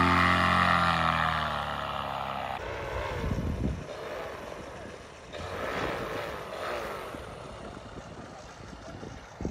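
Paramotor engine and propeller running at high power, its pitch falling and fading as it moves away. About two and a half seconds in, the sound cuts to a fainter, more distant paramotor hum with wind rumbling on the microphone.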